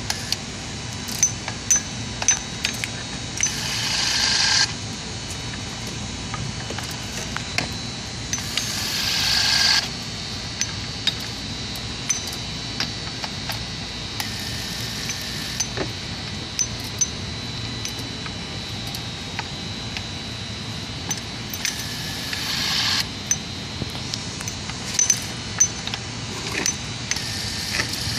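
Electric torque wrench (Torkworx E-RAD 700) running up on coupling bolts four times. Each run is a high-pitched motor-and-gear whine that grows louder for one to two seconds and then cuts off suddenly, as the tool reaches its set angle or torque. Scattered metallic clicks and clinks of the socket and bolts fall between the runs.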